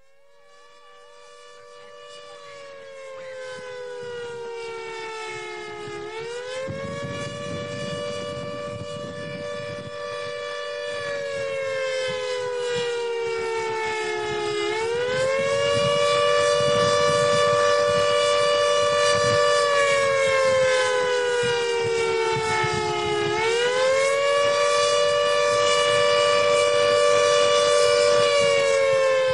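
Warning siren wailing for a tornado warning: a two-tone whine that falls slowly for about six seconds, then swoops back up and holds, repeating every eight or nine seconds. It fades in from quiet and grows louder through the first half.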